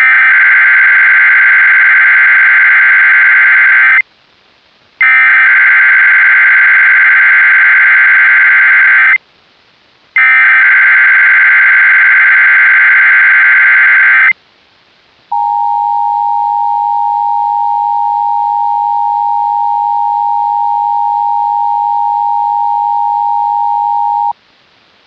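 Emergency Alert System SAME header tones: three long bursts of warbling digital data, each about four seconds with a second's pause between, made long by carrying the maximum 31 county codes. After a short pause comes the EAS two-tone attention signal, a steady harsh dual tone held for about nine seconds.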